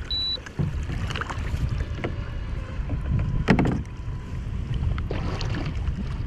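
Wind on the microphone and water moving around a kayak on the open sea, with scattered knocks and splashes, the largest about halfway through. A short high electronic beep sounds right at the start.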